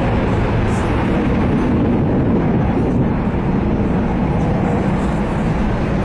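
Ilyushin Il-78 tanker's four D-30KP turbofan engines at takeoff power during the takeoff roll, giving a loud, steady jet noise that is heaviest in the low end.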